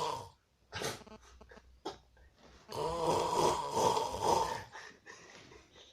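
A person snoring: one snore trails off at the start, then after a pause with soft breath sounds comes one long, loud snore of about two seconds in the middle.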